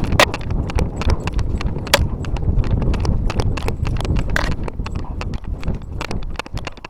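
Irregular clatter of sharp knocks and clicks over a low rustling rumble, dying down near the end.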